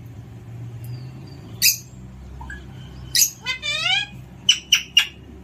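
Alexandrine parrot calling: a sharp call, then a harsh squawk running into a quick string of rising chirps, then three short sharp calls in a row near the end, over a faint low hum.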